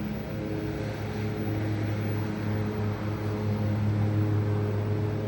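A train locomotive running steadily at the platform, a constant low engine hum with a haze of noise over it.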